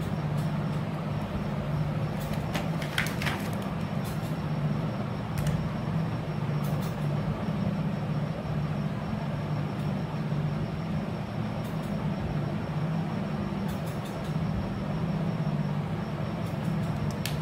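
A steady low mechanical hum over a constant background noise, with a few faint short clicks, the clearest about three seconds in.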